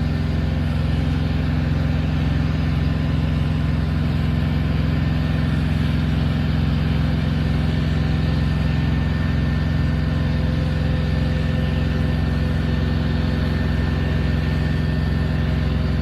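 Diesel locomotive engine running steadily, its exhaust throwing fire.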